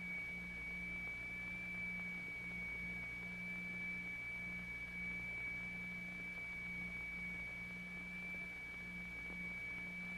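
Two closely tuned low electronic notes sounding together so that the tone throbs, swelling and fading about two and a half times a second: an audible beat, the interference of two near-equal frequencies. A steady high-pitched tone sounds over it.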